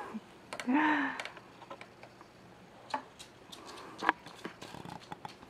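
A brief voice sound about a second in, then faint scattered clicks and taps.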